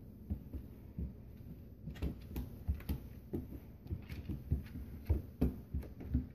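Alaskan Malamute puppy's paws and claws tapping and scrabbling on a hardwood floor as she spins after her tail: irregular soft thumps and clicks, coming thicker and sharper from about two seconds in.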